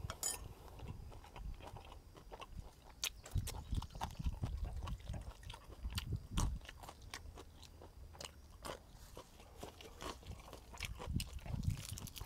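Chewing and crunching close to a clip-on microphone: a person eating spicy duck larb with crisp raw vegetables, with irregular crunches and bites throughout.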